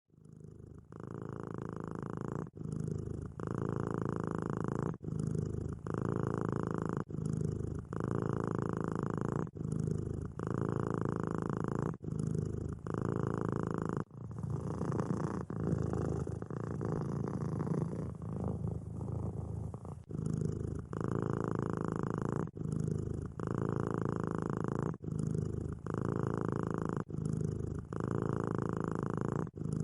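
Domestic cat purring steadily, in phrases broken by a short pause every second or two. About halfway through the purr runs on for several seconds without breaks, then falls back into the same phrasing.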